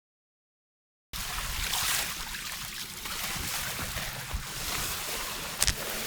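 Sea waves washing against the shore, mixed with wind noise, cutting in abruptly about a second in. A single sharp knock near the end.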